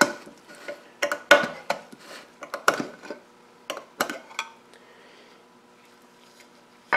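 Metal lid of a quart paint can being pried off with a metal can-opener tool: a run of sharp metallic clicks and pops around the rim over the first four seconds or so.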